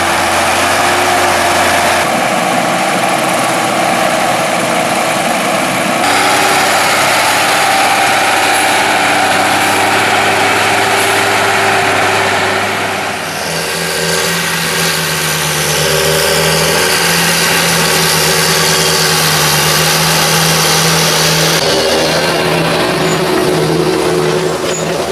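Heavy farm machinery engines running: tractor diesels working, with the engine note changing abruptly several times as different clips are cut together.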